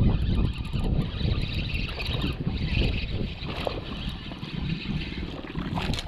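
Wind buffeting the microphone while a spinning reel is wound to retrieve the line, with a small fish splashing at the surface near the end.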